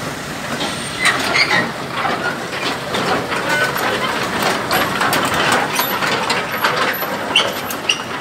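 Steel tracks of a Hitachi mini excavator clanking and rattling as it crawls along a steel trailer deck, a quick irregular run of metal knocks from about a second in.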